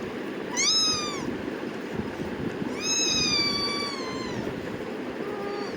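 Kitten meowing: a short high call about half a second in, then a longer drawn-out meow that falls gently in pitch, and a brief lower call near the end. A steady low background noise runs underneath.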